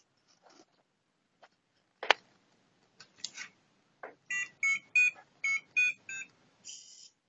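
A piezo buzzer on an Arduino plays a quick melody of about six short beeps, each a little different in pitch, followed by a brief higher buzz. Before it come a sharp knock and a few clicks from the gear being handled.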